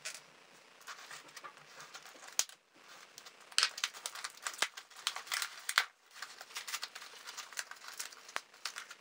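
Packaging being opened by hand: irregular crinkling and tearing, with several sharp crackles standing out.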